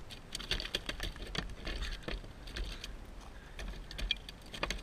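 Irregular clicks, taps and knocks of a freshly landed fish being handled with a towel and laid against a plastic kayak's deck, over a faint low rumble.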